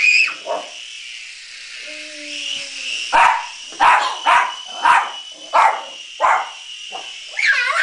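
Schipperke barking in sharp yaps: one at the start, then a run of about seven, roughly one every half second, from about three seconds in. A small RC helicopter's motor whines steadily underneath.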